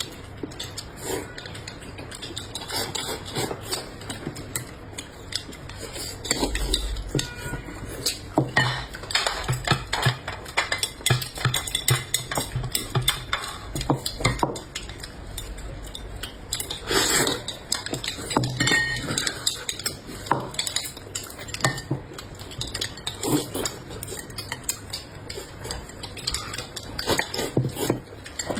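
Spoons and forks clinking and scraping against plates and bowls during a meal, a steady run of irregular sharp clicks that grows busier about eight seconds in.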